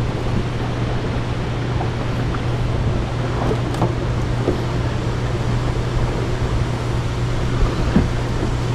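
Boat motor running with a steady low hum under wind and water noise, with a few faint knocks on the boat.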